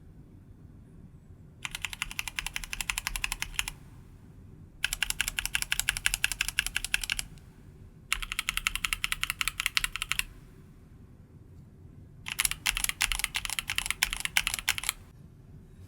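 Mechanical keyboard fitted with stock, unlubed linear switches (Gateron Red, Tecsee Diamond and Durock L-series in separate rows) being typed on fast. There are four runs of rapid keystrokes, each two to three seconds long, with short pauses between them.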